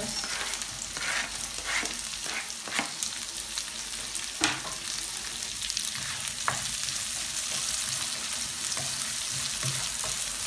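Chopped garlic and onion sautéing in hot oil in a nonstick wok: steady sizzling, with a plastic spatula scraping and tapping the pan as it stirs, the loudest tap about four and a half seconds in.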